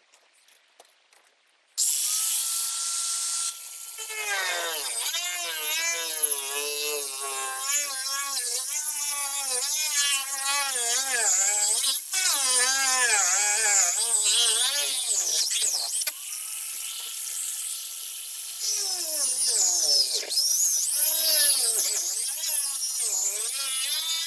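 Handheld power tool switched on about two seconds in, running free for a moment and then cutting, its pitch dropping and surging as it bites into the rotted stringer wood and foam. Midway it runs free again for a couple of seconds before cutting once more.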